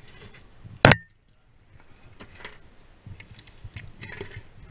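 Handling noise from a rope-access worker's harness gear and hands on the roof: one sharp click about a second in, then faint scattered clicks and scrapes, a little louder near the end.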